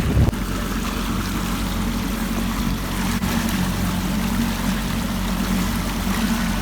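Small boat's motor running steadily with a constant low hum, over an even hiss.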